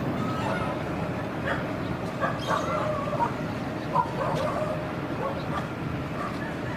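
Steady rumble of a jet airliner on the runway, with a series of short, yelping animal calls over it, the loudest about four seconds in.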